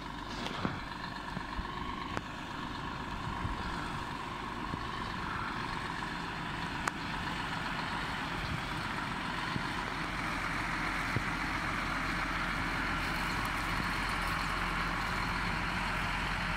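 Scania truck towing a double-trailer road train, its diesel engine running as it drives slowly closer and passes, the sound growing steadily louder.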